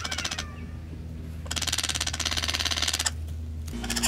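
Ivory-billed aracari giving excited calls: fast, dry rattling trains of clicks, a short one at the start and a longer bout in the middle.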